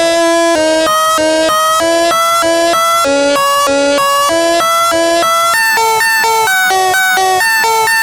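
Tornado siren tone, electronically edited: its steady wail is chopped into a quick back-and-forth between two pitches, about three or four steps a second, and the pattern jumps higher about five and a half seconds in.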